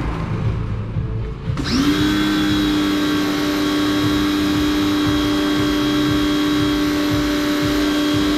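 A small electric motor switches on about one and a half seconds in. Its whine quickly rises in pitch, then it runs on at a steady speed.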